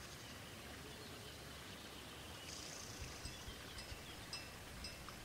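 Outdoor night ambience: a steady soft hiss with faint short high chirps from about halfway through, and a few soft knocks about half a second apart in the second half.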